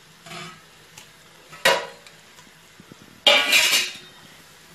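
A cooking utensil knocking sharply once against an iron kadai, then clattering and scraping against it for about half a second.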